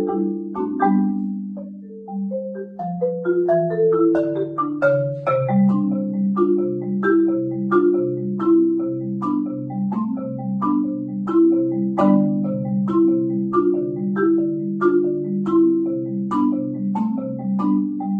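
Keyboard mallet percussion played with mallets: a melody of struck, ringing bar notes over a repeating lower bass line, steady and rhythmic.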